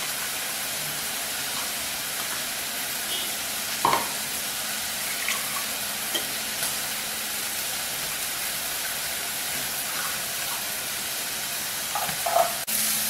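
Tamarind-water puli kulambu in a steel pot on the stove coming to a boil: a steady hiss of the liquid heating and bubbling. There is a single light knock about four seconds in.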